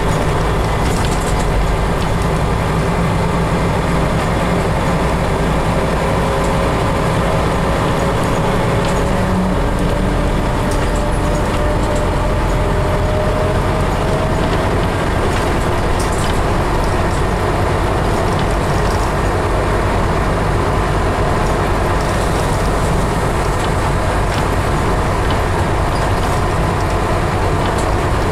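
Scania CN270UB city bus driving, heard from inside the passenger cabin: a steady diesel engine drone with a faint whine that slowly rises in pitch. The engine note changes about ten seconds in.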